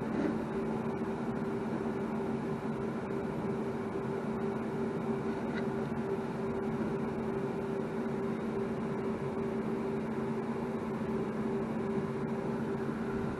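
Steady hum of a small motor running continuously: two constant tones over an even hiss, without change.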